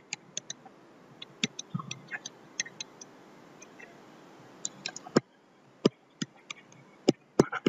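A pen stylus tapping and clicking on a tablet surface while handwriting: a run of short, irregular ticks, with a few louder clicks about five seconds in and near the end.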